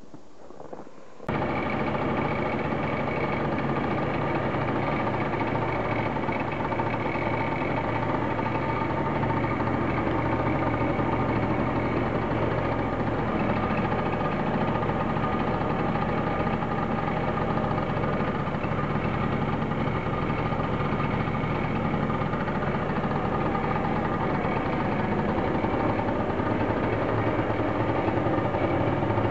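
Honda Dio scooter engine running steadily at an even speed; it starts abruptly about a second in.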